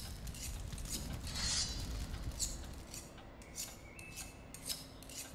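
Barber's straight razor stroked across a whetstone: a series of short metallic scrapes, coming closer together in the second half.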